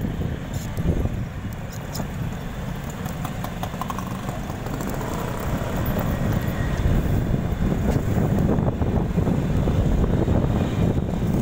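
Wind rushing over the microphone and the low rumble of a moving motorcycle and road, growing louder about halfway through.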